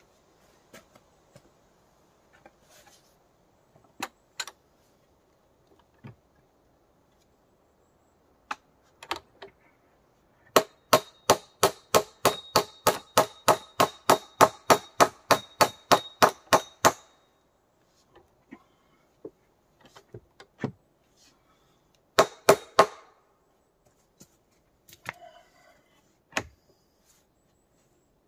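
Hammer blows: a fast, even run of about two dozen strikes, about four a second, with a faint metallic ring, then a quick cluster of a few more blows and scattered single knocks.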